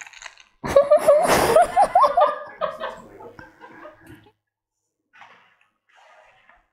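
A short burst of laughter about a second in, tailing off over the next couple of seconds.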